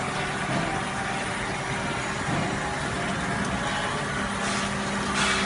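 Pharmech TC 700 tablet counting and filling machine running: a steady mechanical hum and noise with a constant low tone, which grows a little stronger about four seconds in.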